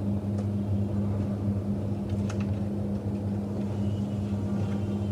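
A steady low electrical or fan-like hum, with a few faint crinkles and ticks of a sheet of origami paper being folded and creased by hand.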